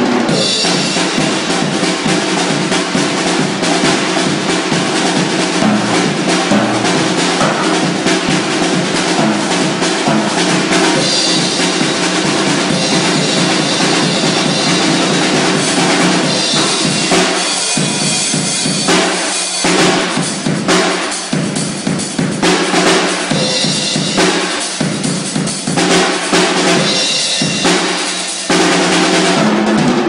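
Tama acoustic drum kit played solo: fast, dense fills on snare, toms and bass drum under a steady cymbal wash. In the second half the playing breaks into separate accented hits with short gaps, and a loud hit near the end rings on.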